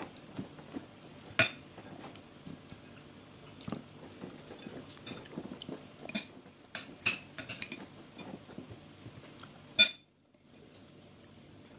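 Metal fork clinking and scraping against a ceramic plate as a small child eats, in scattered sharp clinks, the loudest about ten seconds in. A steady low hum runs underneath, and the sound drops out briefly near the end.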